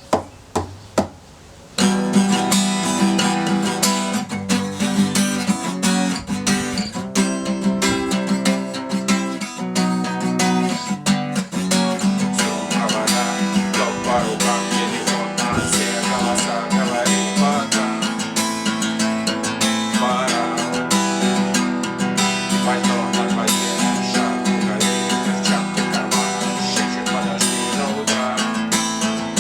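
Acoustic guitar strummed in a steady rhythm, preceded by three short sharp knocks in the first second and a half.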